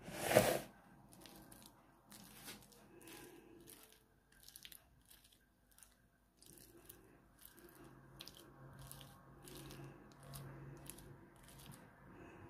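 Thick mayonnaise being spread over a diced potato salad with a utensil: short, wet scraping strokes about twice a second. A sharp knock comes right at the start.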